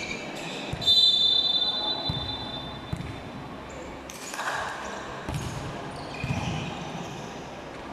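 A referee's whistle blows once about a second in, one long high note, followed by a volleyball being bounced on the hard court floor a few times before the serve, with players' shouts in between.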